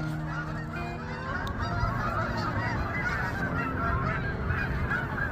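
A large flock of geese honking all at once, a dense chorus of many overlapping calls.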